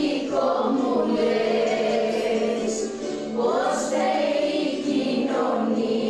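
Choral singing: several voices singing together in long held notes, with a few rising slides between notes.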